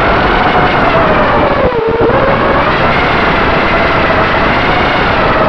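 Brushless motors and propellers of a Shendrones Krieger mini race quad whining in flight over a rush of wind noise, heard from the quad's onboard camera. The pitch wavers with the throttle, drops sharply just under two seconds in, then rises again.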